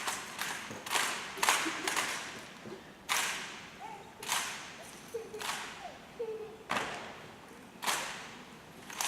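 A rifle drill team's rifle handling: a series of sharp slaps and cracks, four close together in the first two seconds, then one about every second and a quarter.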